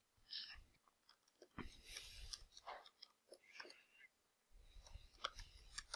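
Faint, irregular clicks of typing on a computer keyboard, heard against near silence.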